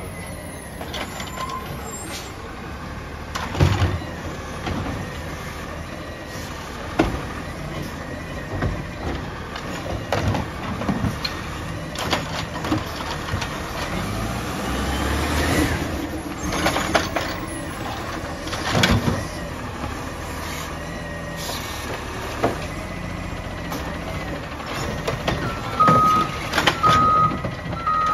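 Automated side-loader garbage truck with a McNeilus body, its diesel engine running as it pulls up to the curb, with air brake hisses and sharp clanks from the body and lift gear. Near the end a run of repeated warning beeps starts as the automated arm extends toward the cart.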